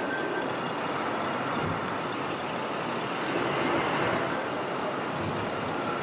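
Steady city street traffic noise, an even rush with no single vehicle standing out.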